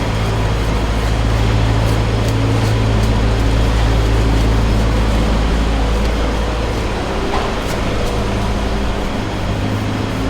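A steady low mechanical hum, like an idling engine or motor, over a dense background noise, with a few faint clicks. The low hum drops away near the end.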